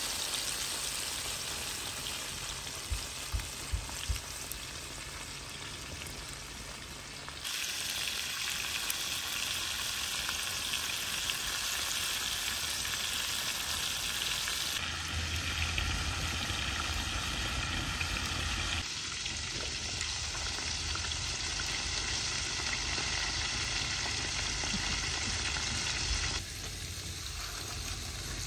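Fish pieces deep-frying in hot oil in a saj pan, a steady sizzle of bubbling oil that changes abruptly in level a few times. A few sharp clicks come between three and four seconds in.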